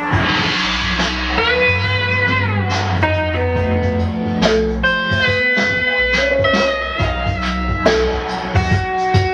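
Live instrumental music: a pedal steel guitar plays sustained notes that glide up and down, over drums and hand percussion. A shimmering wash of struck metal percussion sounds at the start.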